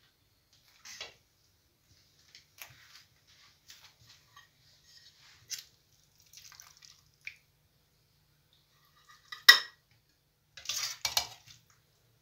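Metal serving spoon scraping and clinking against a stainless steel pot and plates as braised cabbage is dished out: scattered soft taps and scrapes, then one sharp clink near the end followed by a short run of clatter.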